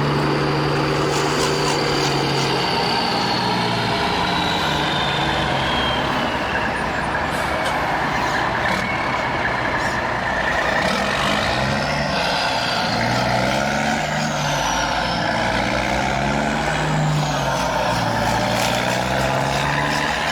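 Radio-controlled construction models running: small electric motors and gearboxes whining, the high whine gliding down and rising again several times, over a low engine-like drone that changes pitch in steps.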